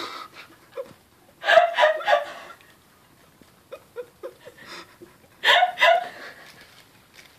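A woman laughing in two short bouts, with faint clicks and rustles between them from a kitten inside a plastic bread bag.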